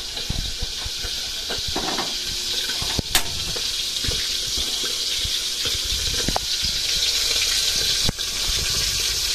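Steady hissing of a gas stove burner heating a steel pot of sauce liquid toward the boil, with a light click about three seconds in.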